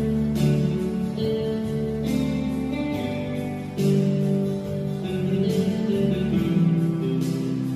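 A Christian worship song played on strummed acoustic guitar, with held chords and a strum every second or two.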